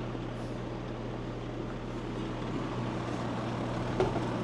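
Outdoor air-conditioning condensing unit running: a steady drone of the compressor and condenser fan with a low hum. A single sharp click about four seconds in.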